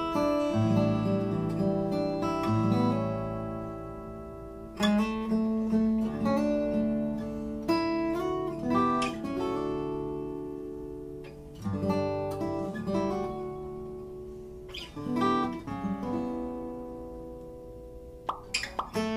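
Background music played on acoustic guitar, with plucked and strummed chords.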